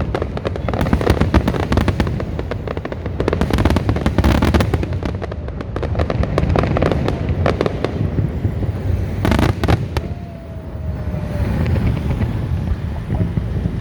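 Aerial fireworks display: a dense run of bangs and crackling over low rumbling booms, thinning out after about eight seconds into two sharp bangs, then a faint falling whistle.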